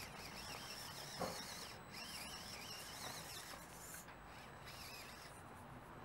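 Faint whine of a 1/18 mini-crawler's stock 130-size brushed motor and geared transmission as it crawls over stones, with one sharp knock about a second in.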